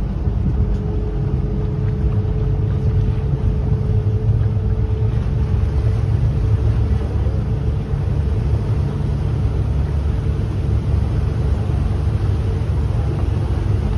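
Boat's engine running steadily under way, with water rushing along the hull: a constant low rumble, with a faint steady hum above it.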